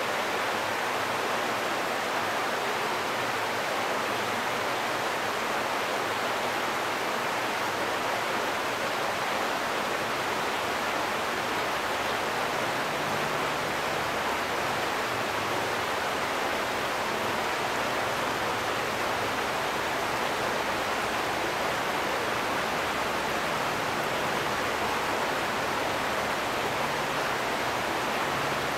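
Steady rush of glacial meltwater flowing over rocks, an even noise with no breaks or separate drips.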